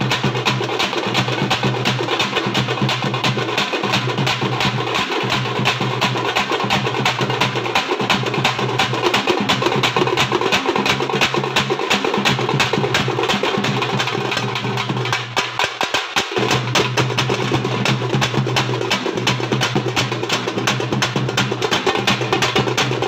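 A troupe of drummers beating wide double-headed drums with sticks in unison, a fast, dense, unbroken rhythm. The lowest layer drops out briefly about fifteen seconds in, then returns.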